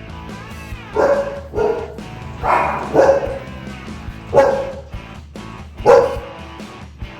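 Shih tzu dog barking about six times at uneven intervals, alert barking at the doorbell, over steady background music.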